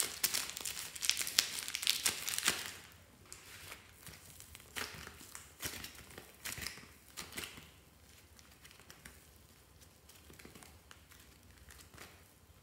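Hands squeezing and kneading soft foam clay and slime: dense sticky crackling and crinkling for the first two or three seconds, then sparser, fainter crackles that die away about seven seconds in.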